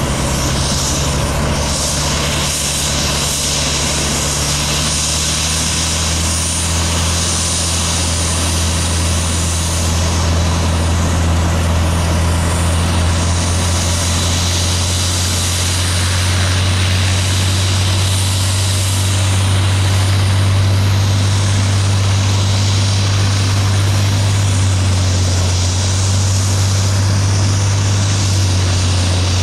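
AW169 twin-turbine helicopter hovering and hover-taxiing low: a steady, loud rotor thrum with a high turbine whine over it. The low thrum grows a little louder about six seconds in.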